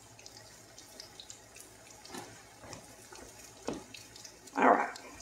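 Potato pieces being cut off by hand and dropping into frying oil in a cast-iron skillet, with a faint sizzle. There are a few soft plops, and the loudest comes near the end.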